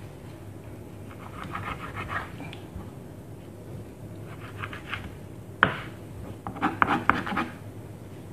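Knife cutting and scraping at a raw whole chicken on a wooden cutting board: short bursts of scraping, a sharp knock a little past halfway, then a run of quick ticks.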